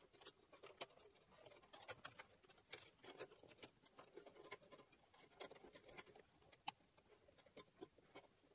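Near silence with faint, scattered light clicks and rustles: a bandsaw blade being worked onto the saw's wheels by gloved hands.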